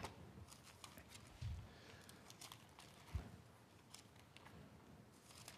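Near silence with faint rustling and light clicks of Bible pages being leafed through, and two soft low thumps about one and a half and three seconds in.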